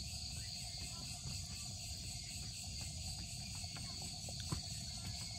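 Crickets and other insects chirping in a steady, continuous chorus, over a low rumble, with a few faint clicks.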